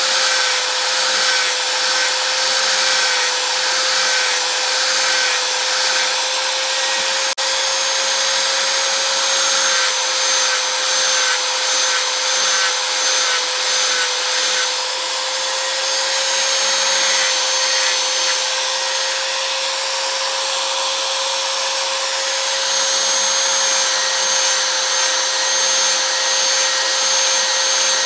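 Electric sanding disc running with a steady whine while a piece of sonokeling rosewood root is pressed and shaped against it, the abrasive hissing on the wood. There is a brief dropout about seven seconds in.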